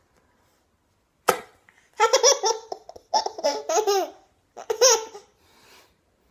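A nine-month-old baby laughing hard in three high-pitched bursts of giggles. The laughing follows a single sharp click about a second in.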